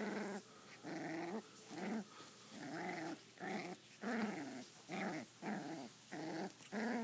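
Five-week-old sheepdog-poodle mix puppy growling in play as it mouths a hand. It gives a string of short growls, about two a second.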